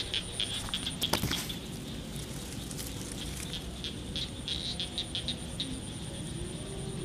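Rapid, repeated high chirps from small outdoor creatures, over a low rumble of wind and handling on the microphone. About a second in there is a loud rustle and knock as the camera brushes through grass.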